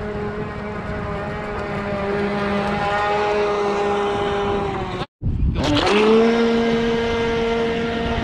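Traxxas Blast RC boat's 20-turn electric motor and propeller whining steadily at speed. After a short break about five seconds in, the whine rises quickly as the boat accelerates, then holds steady again.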